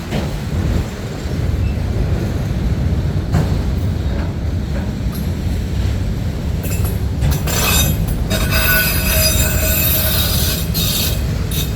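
Freight train cars rolling past with a steady low rumble; about seven seconds in, wheels start squealing in high, ringing tones that hold for about four seconds and then die away.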